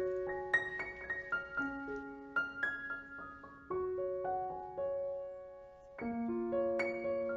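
Background piano music: a slow, gentle melody of single notes over long held bass notes.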